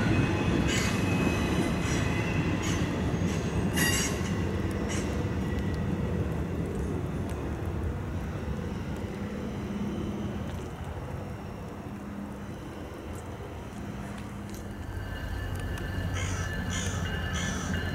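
Loaded freight train rolling away over the rails, its rumble slowly fading, with brief high wheel squeals in the first few seconds.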